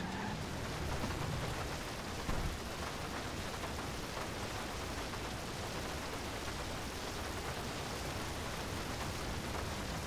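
Video-game water gushing steadily from a broken fire hydrant, a continuous rushing spray like heavy rain.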